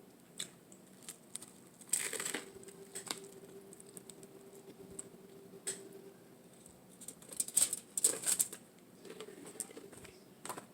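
Close-miked eating of a toasted bacon avocado tuna melt: scattered wet mouth clicks, with louder crisp crunching bites about two seconds in and again around eight seconds.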